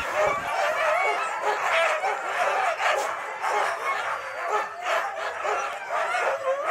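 A harnessed team of sled dogs yelping and barking all at once. It is a continuous chorus of many overlapping calls, the excited noise of a team eager to set off on a run.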